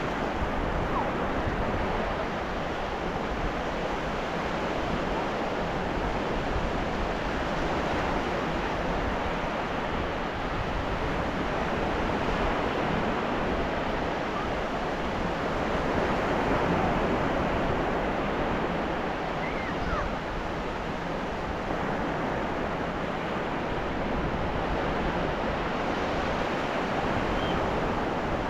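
Ocean waves washing onto a beach: a steady, continuous rush of surf that swells slightly about two-thirds of the way through.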